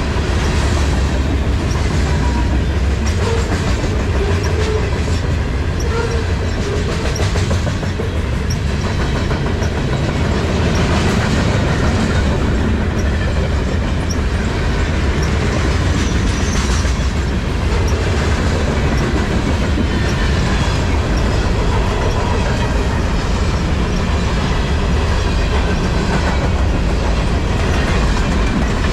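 Railway cars rolling steadily past at close range: a constant low rumble with wheels clicking over the rail joints.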